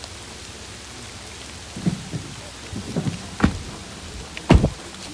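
Steady rain falling in the woods, with a few short, dull low thumps over its last three seconds, the loudest one near the end.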